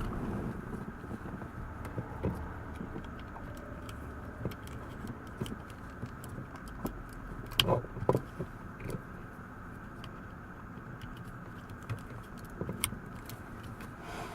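Scattered light clicks and rattles of small parts being handled, over a steady hum. A few sharper clicks come about halfway through and near the end.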